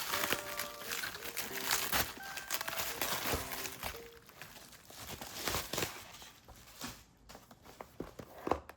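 Packaging being handled: crinkling and rustling with many small clicks and taps, thinning out to a few separate taps in the last couple of seconds.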